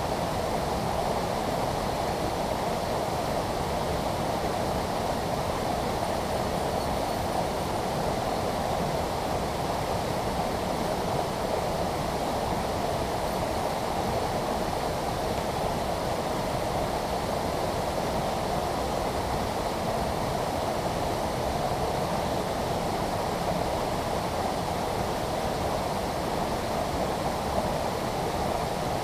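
Mountain headwater stream rushing over boulders and a small cascade, running high after rainy-season rain: a steady, even rush of water.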